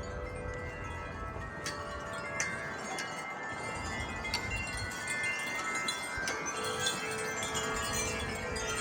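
Wind chimes ringing in gusty wind: irregular strikes, several of them sharp, with many overlapping notes held and dying away. A low wind rumble sits under them in the first few seconds.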